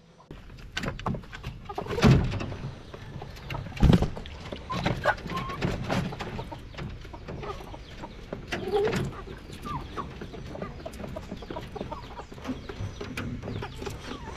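A chicken clucking in short calls, over sharp knocks and rattles from a plastic bottle drinker being fixed to a wooden chicken coop; the two loudest knocks come about two and four seconds in.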